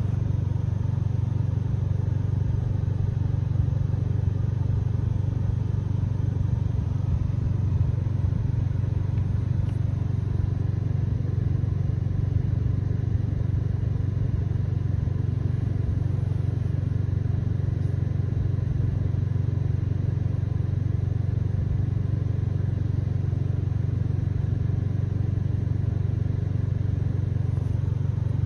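Steady low rumble of a stationary car's engine idling, heard from inside the cabin.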